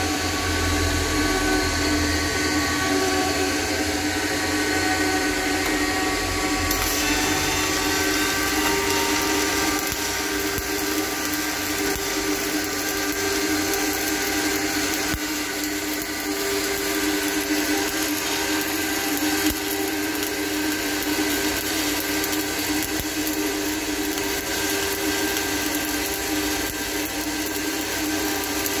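Electric arc welding on the inside of a large steel pipe joint, filling a wide gap in the seam: the arc starts about seven seconds in and then crackles and hisses steadily. A steady hum with a few fixed tones runs underneath throughout.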